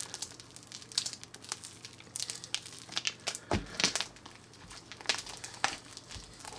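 Food slime being squeezed and worked by hand, giving irregular small crackles and squelches, with a louder squelch about three and a half seconds in.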